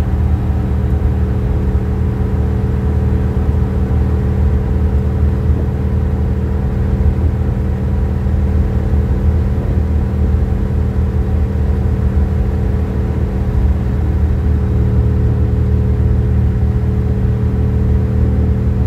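Car engine humming steadily at highway cruising speed, with road noise, heard from inside the cabin.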